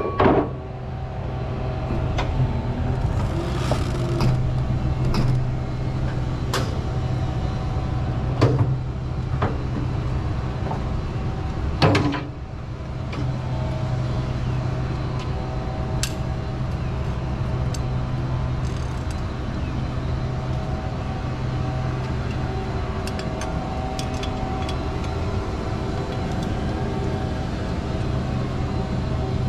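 Rollback tow truck running steadily with a low hum while a car is drawn up onto its tilted bed and strapped down, with scattered metal clanks and knocks, the loudest about twelve seconds in.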